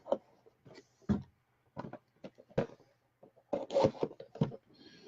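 Scattered light clicks, knocks and scrapes of things being handled, irregular, with a longer cluster of handling noise about three and a half seconds in.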